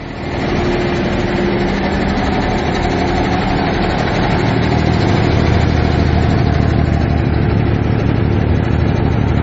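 Finn T330 hydroseeder's engine running steadily, with a constant drone that grows a little louder about halfway through.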